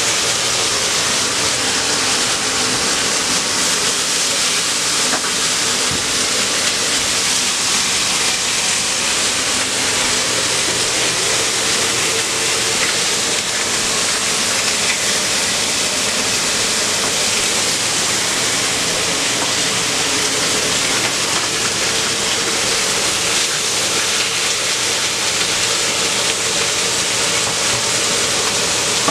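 Blended red chile salsa sizzling and bubbling in a hot pot: a loud, steady hiss, with a faint low hum underneath.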